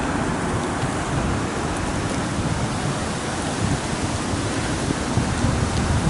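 Steady outdoor street noise at night: an even hiss over an uneven low rumble.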